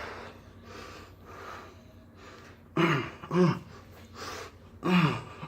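A man breathing hard from exercise, with rapid, repeated puffs of breath in and out. A few short pitched vocal sounds come about halfway through and again near the end.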